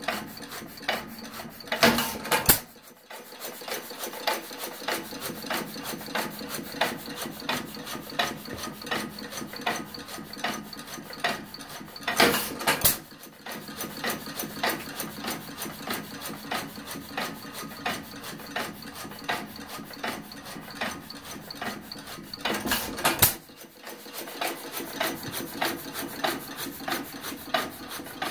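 New Holland 1½ horsepower single-cylinder, hopper-cooled hit-and-miss engine running, with a quick, even ticking from its valve gear and governor latch as the flywheels coast. Three times, about ten seconds apart, it fires a short run of louder power strokes before coasting again.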